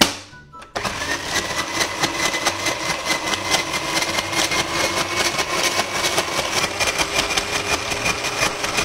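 Electric ice shaver running: a steady motor whine over a dense, rapid crunching as ice cubes are shaved down into the bowl. It starts under a second in, just after a knock, and its pitch rises a little at first, then holds.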